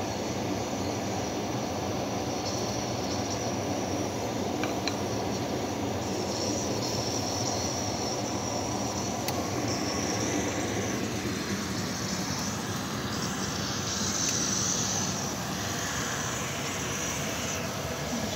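Chicken skewers sizzling on an electric grill plate: a steady hiss over a low, even rumble. The hiss swells for a few seconds past the middle.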